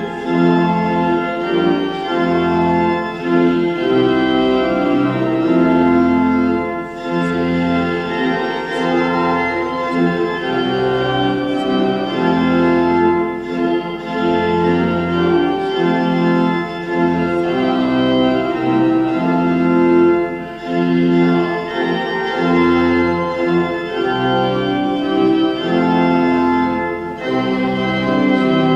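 Church organ playing held chords over a stepping bass line, in phrases with short breaks between them.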